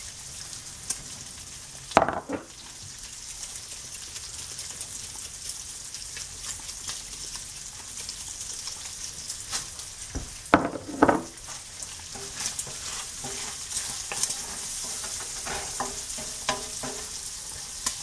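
Bacon, onions and garlic sizzling as they fry in a pan, a steady hiss throughout. Sharp knocks of a utensil against the pan come about two seconds in and again around ten to eleven seconds in as the food is stirred, with lighter taps after.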